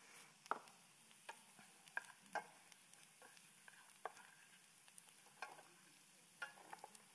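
A wooden spatula scraping and knocking against a stainless steel frying pan as food is stirred in garlic butter, with a scatter of short scrapes and clicks over a faint sizzle.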